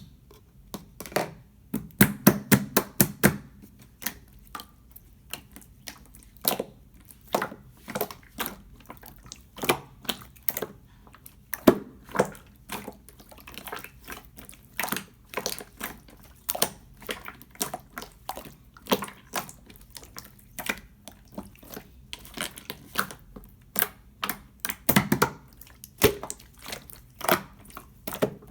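Clear slime being squished and pressed by hand, making a run of wet clicks and pops, several a second, thickest about two seconds in and again near the end.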